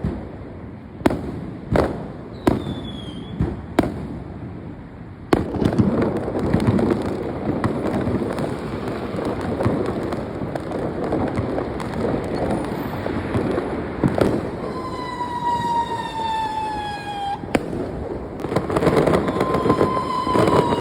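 Fireworks going off: a few separate sharp bangs in the first five seconds, then from about five seconds in a dense, continuous crackle of explosions. In the second half, long whistles fall slowly in pitch over the crackle.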